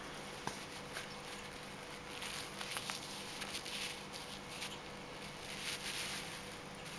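Kitten playing with a feather: soft rustling and scratching of the feather and its paws on a cork floor, in short spells with a few light clicks.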